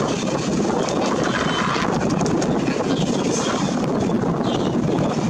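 Steady roar of airport noise from distant aircraft engines, even throughout with no single event standing out.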